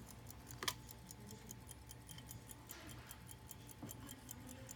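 Mechanical ticking of an 1890s F. Jacob Matile key-wind pocket watch with a 13-jewel lever movement: quick, even ticks, about five a second. There is one louder click just under a second in.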